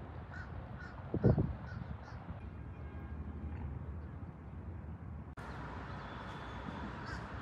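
Outdoor ambience with birds calling: a loud, harsh call about a second in and small high chirps, over a steady low rumble. The background changes abruptly about five seconds in.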